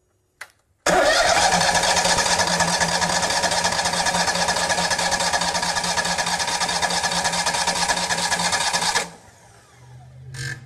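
Kohler fuel-injected engine being cranked by its starter for about eight seconds with an even pulsing beat, after a click, and cutting off abruptly without the engine running: the newly fitted fuel pump and filter are still empty of gas.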